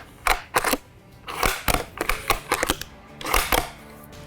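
The bolt of a Savage bolt-action rifle being worked after reassembly: a quick series of metallic clicks and clacks as the bolt is cycled, checking that the action functions.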